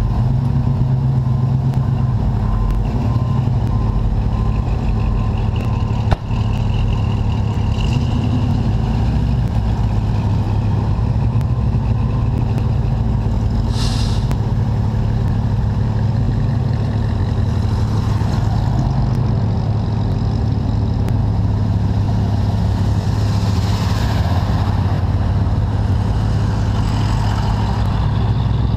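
Car engine idling steadily close by, with a car door shutting about six seconds in. Other vehicles pass on the road, a van going by near the end.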